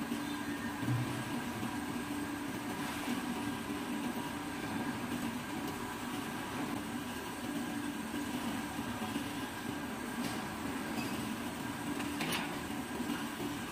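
Steady machine hum in a machine shop, with a few faint clicks while a tap is turned by hand with a wrench to recut a thread to 12 mm × 1.75.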